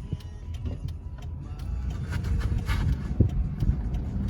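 Car driving along, a steady low engine and road rumble with a few light clicks.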